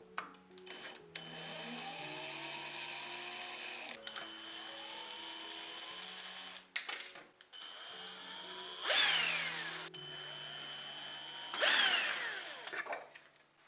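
A small handheld rotary power tool running in spells, a steady whir with a high whine. Twice, at about 9 and 12 seconds, it gets louder and its whine falls in pitch as it grinds into the work. Background music plays quietly underneath.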